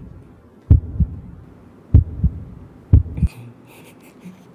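Heartbeat sound effect: slow lub-dub double thumps, three of them about a second and a quarter apart, stopping a little past three seconds in.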